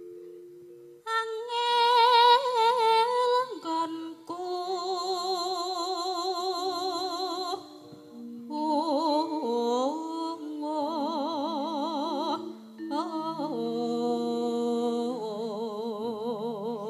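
A Javanese sinden (female singer) sings through a microphone with a wide vibrato on long held notes, in phrases broken by short breaths about 4, 8 and 12.5 seconds in, over steadily held instrumental accompaniment notes.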